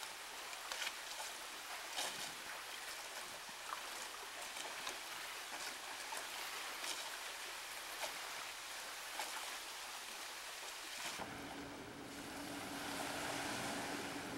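Chicken sizzling over a small charcoal grill: a steady hiss with scattered crackles and pops. About eleven seconds in it cuts abruptly to wind and water at a shoreline, with a steady low hum.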